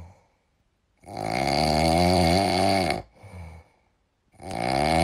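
French bulldog snoring in its sleep: two long, loud snores of about two seconds each, with a short, softer one between them.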